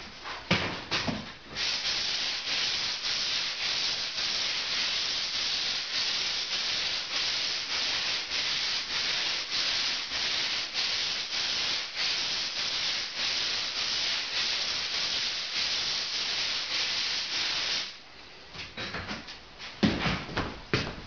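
Hand sanding block rubbed back and forth over a painted plaster ceiling, a steady scratchy hiss pulsing with about two strokes a second: sanding down a coat of paint before the next coat. The sanding stops a few seconds before the end, and a few knocks follow.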